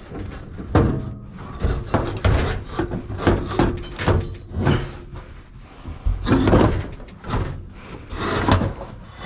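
Fan coil unit's sheet-metal blower assembly being wrestled loose from its housing by hand: a string of irregular clunks, knocks and scrapes of metal.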